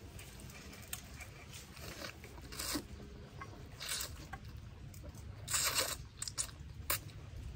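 A person eating rice noodles with spicy papaya salad by hand: wet mouth noises of slurping and chewing. There are short louder slurps about two and a half seconds in and again about five and a half seconds in, with a few small smacks after.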